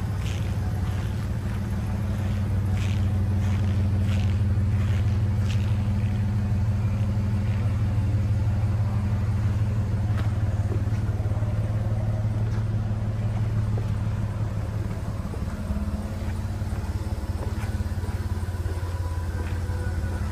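2002 Chevrolet S-10 pickup's engine idling steadily, a low even hum with a fast, regular pulse.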